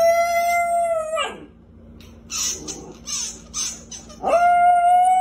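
Two long, steady squeaks from a rubber squeaky toy held in a small dog's mouth, one at the start and one near the end.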